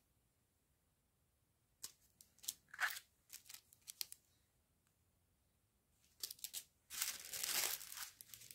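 Small clear plastic packets of round diamond-painting drills crinkling and rustling as they are handled and laid down: a few scattered rustles about two seconds in, then a dense run of crinkling near the end.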